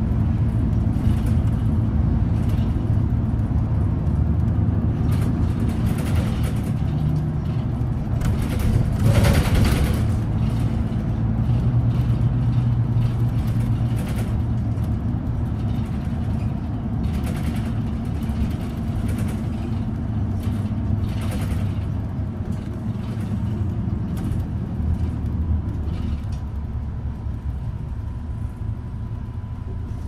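City bus engine and road rumble heard from inside the passenger cabin while the bus drives, with scattered small rattles and a louder surge about nine seconds in. The rumble eases off toward the end.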